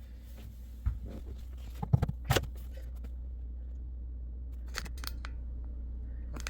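Drill battery charger being plugged into a newly wired outlet: a series of sharp plastic clicks and knocks, a cluster about two seconds in and more about five seconds in, over a steady low hum.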